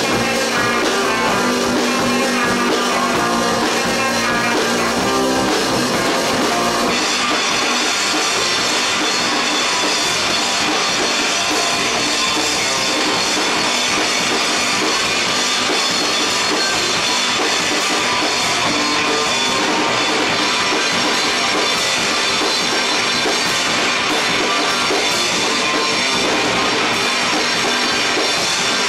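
Rock band playing live, with guitar and drum kit. About seven seconds in, the playing turns fuller and brighter.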